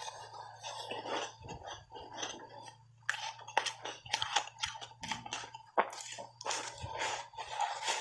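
Crunchy reshaped ice, heavily coated in matcha powder, bitten and chewed in big bites: a dense, irregular run of sharp crunches. A faint low steady hum lies underneath.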